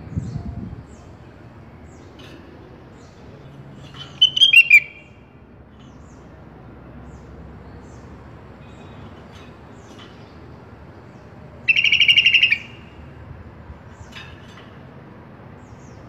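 Sooty-headed bulbul (kutilang) calling: a short burst of quick falling notes about four seconds in, and later a harsh, rapid rattling call, with faint scattered chirps between over a steady background hiss.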